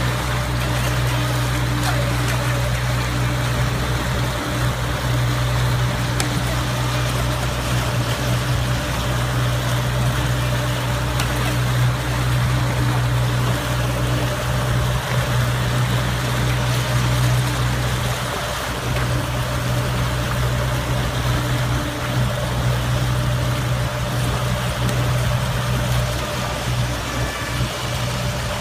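Johnson outboard motor running steadily at cruising speed, a constant drone with the rush and churn of water from the boat's wake.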